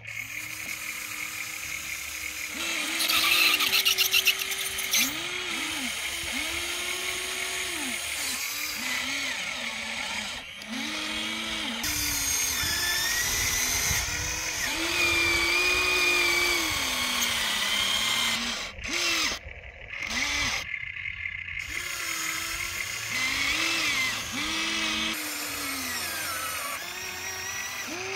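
Electric gear motors of a Huina radio-controlled toy excavator whining in short runs, one after another, each rising and then falling in pitch, as the boom, arm and bucket move while digging soil.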